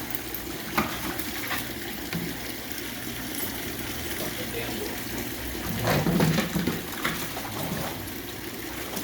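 Steady trickling of swimming-pool water over a low steady hum, with a few sharp clicks early on and a louder scuffle about six seconds in.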